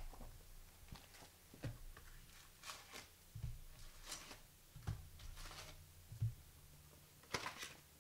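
Faint, scattered rustling and light taps of trading-card boxes and packs being handled, over a low steady hum.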